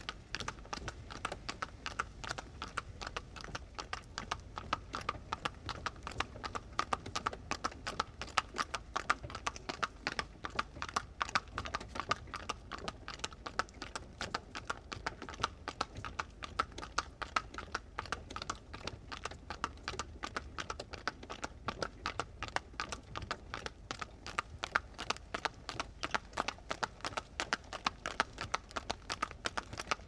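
Horse-drawn cart on the move: hooves clip-clopping and the wagon rattling in a steady, rapid clatter of sharp knocks over a low rumble.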